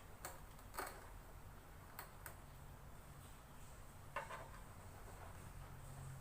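Faint handling noises of the robot vacuum's plastic parts: a few scattered clicks and short scrapes while tangled hair is worked off the brush, over a quiet room.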